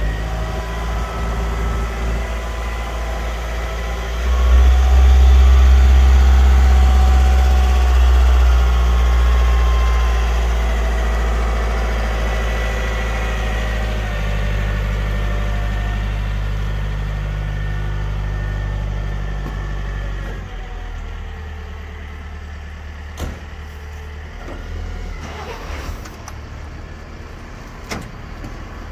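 Manitou MT 730 telehandler's diesel engine running. It speeds up about four seconds in, with a faint whine over it, then settles back in steps to a lower idle. A couple of short clicks come near the end.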